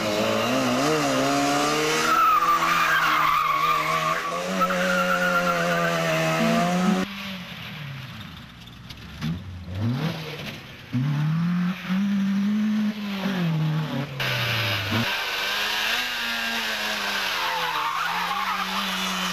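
Rally car engines revving hard, their pitch rising and falling through gear changes, across several shots joined by abrupt cuts. Tyres squeal on loose ground.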